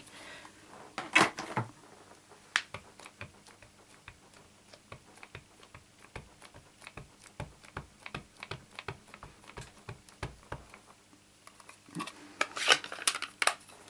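A red rubber stamp mounted on a clear acrylic block being tapped over and over onto an ink pad to ink it: a long run of light clicking taps, with a louder clatter of handling near the end.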